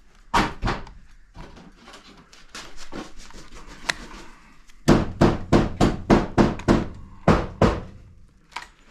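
Hammer blows on wood: two strikes about half a second in, then a run of about ten blows at roughly three a second from about five seconds in, typical of nails being driven into framing.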